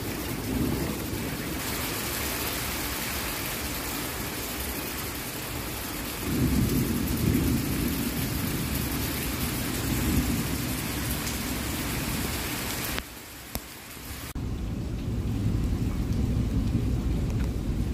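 Steady rain falling with rolling thunder. The thunder rumbles loudest from about six to ten seconds in. Near the end the rain hiss thins while a low rumble goes on.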